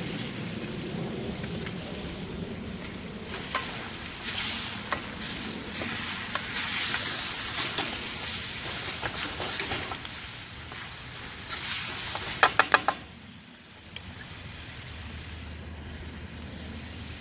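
Chicken frying in oil in a karahi, sizzling loudly while being stirred. Near the end comes a quick run of sharp knocks, and then the sizzle drops to a low hiss.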